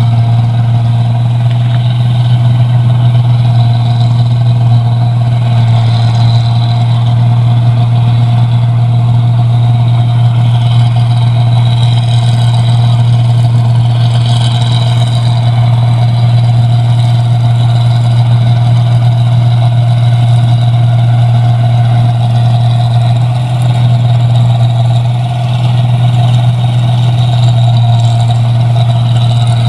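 Rice combine harvester running steadily while cutting paddy: a loud, even engine drone with a strong low hum that barely changes.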